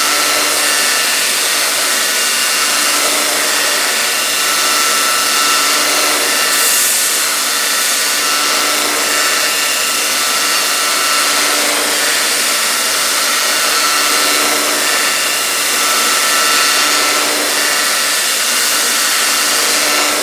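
Homemade belt grinder running while a piece of steel is held against its abrasive belt, grinding weld spatter off the metal: a steady, unbroken grinding noise over the machine's running tone.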